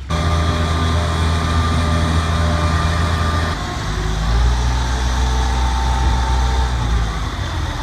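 Engine of a working machine running at a steady speed with a high whine above it, dropping in pitch about halfway through.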